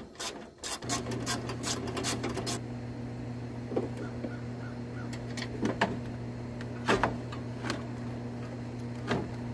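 A ratchet wrench clicking rapidly as it backs out a fan-shroud bolt. It is followed by scattered knocks and scrapes as the plastic fan shroud is worked loose and lifted out. A steady low hum runs beneath from about a second in.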